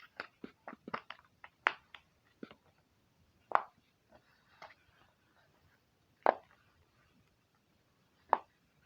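Silicone simple dimple fidget, its bubbles pushed through with small pops: a quick run of soft pops in the first couple of seconds, then three louder single pops a few seconds apart.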